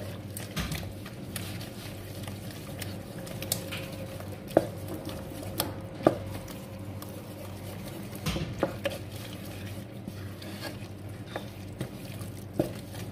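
Four eggs being stirred in a bowl with a utensil: a soft scraping stir with scattered clinks and taps of the utensil against the bowl, over a steady low hum.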